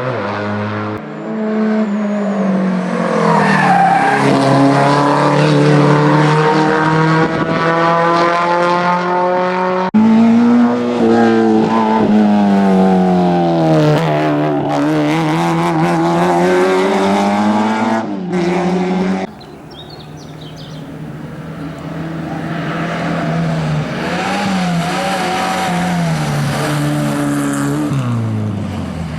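Historic rally car engines revving hard, the pitch climbing and dropping through gear changes as the cars accelerate and pass. The sound switches abruptly to a different car about ten seconds in and again about nineteen seconds in.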